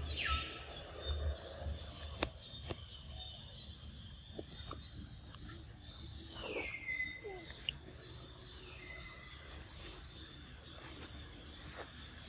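Forest ambience with a steady high insect drone and scattered light clicks. About six seconds in, a single high animal call slides down in pitch and then holds steady briefly.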